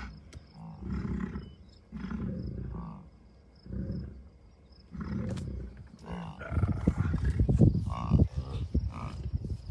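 American bison giving a series of low grunts, one about every second and a half. From about six seconds in, louder wind rumbles and buffets the microphone.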